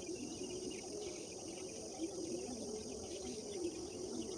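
Morning rural ambience: a steady high-pitched trilling of insects, with scattered bird calls over it.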